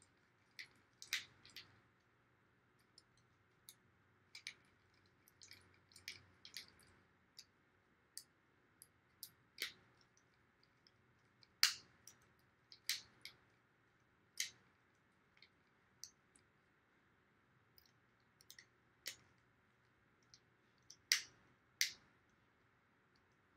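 Scattered small clicks and taps at irregular intervals as a mini quadcopter's frame and propellers are handled and turned to check clearances.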